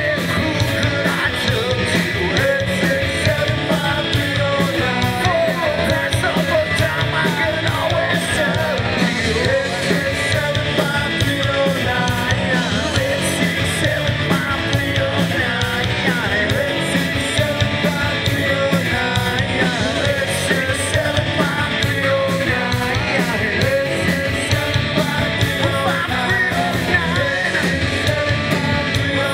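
Live rock band playing an uptempo song with singing, the music dense and continuous throughout.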